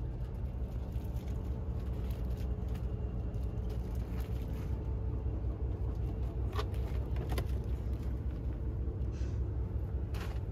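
Steady low rumble of a coach bus on the road, heard inside the cabin, with a few soft clicks and rustles scattered through it.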